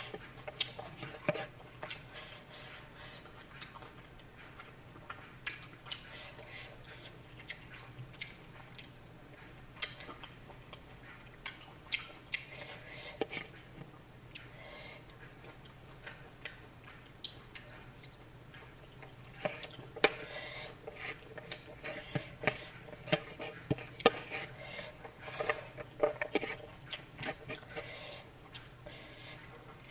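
Irregular clinks and clicks of utensils against dishes, busier in the second half.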